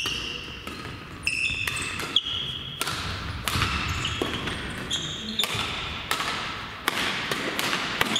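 Badminton rally: sharp racket strikes on the shuttlecock at irregular intervals of roughly half a second to a second, with court shoes squeaking on the gym floor between them.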